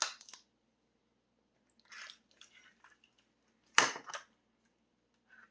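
Small plastic toy packaging handled: a soft crinkly rustle about two seconds in, a few light ticks, then one sharp plastic clack near the four-second mark.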